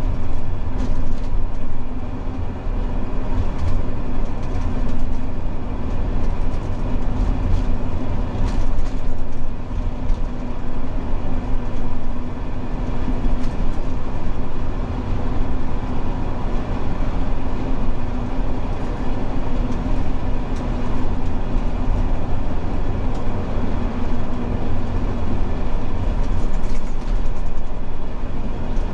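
Inside a large bus cruising at expressway speed: a steady low engine drone mixed with tyre and road noise, with an even hum that holds the same pitch throughout.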